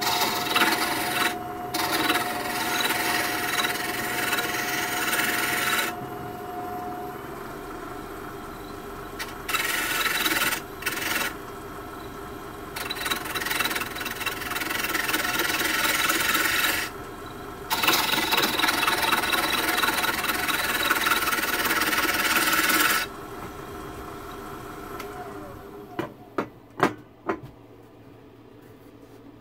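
Turning tool scraping and cutting a small wooden finial spinning on a wood lathe: a rasping hiss in several long passes, with the lathe running more quietly between them. Near the end the cutting stops, the running sound dies away, and there are three sharp clicks.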